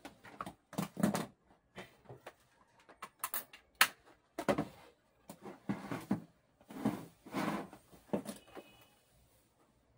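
Handling noise: irregular knocks, taps and scrapes as cables, a backlight tester and a plastic power strip are moved about and set down on the back of a flat-screen TV panel. The sharpest knock comes about four seconds in.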